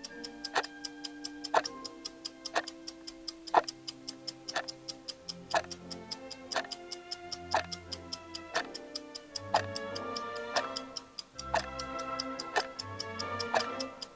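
Clock-tick sound effect of a countdown timer, a sharp tick about once a second, over orchestral music with held notes.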